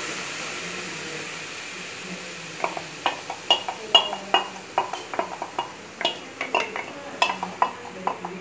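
A metal spoon scraping and tapping chayote puree out of a steel bowl into a nonstick kadai: after a faint steady hiss, a quick run of sharp clinks and knocks starts about two and a half seconds in.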